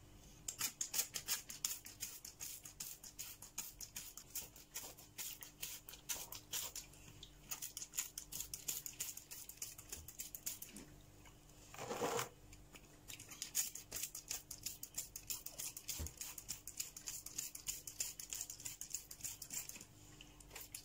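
Hand trigger spray bottle pumped over and over, giving short hissing squirts of water several times a second with a brief pause partway through, as a newly repotted cactus is given a light watering.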